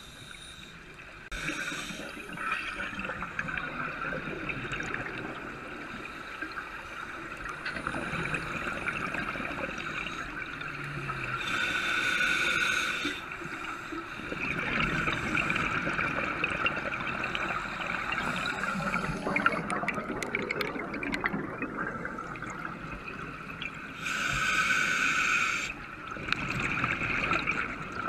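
Scuba regulator breathing heard underwater: a steady bubbling and gurgling of exhaled air bubbles, broken by louder hissing breaths about twelve and twenty-five seconds in.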